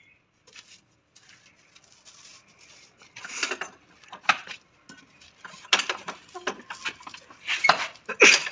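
Irregular metallic clinks and clatter of a socket wrench and long extension bar working on the front subframe bolts, a few sharp knocks spaced a second or so apart.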